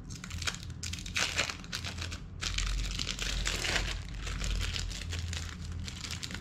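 Thin plastic film being peeled off individually wrapped processed cheese slices and crinkled in the hands, an irregular crackling that is busiest in the middle.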